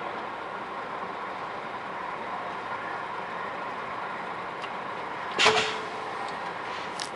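Truck engine idling steadily, with one loud sharp knock about five and a half seconds in and a lighter click near the end.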